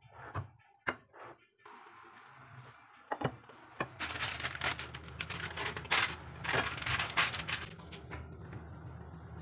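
Kitchen handling sounds: a few knocks of a spatula against a mixing bowl, then about four seconds of dense, crisp clattering and rattling as dishes are handled on the counter, over a steady low hum.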